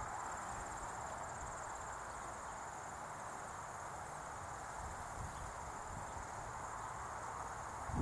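Crickets trilling steadily in a high, continuous chirr, over the even distant drone of an Airbus A400M's four turboprop engines climbing away. Low wind rumble sits on the microphone.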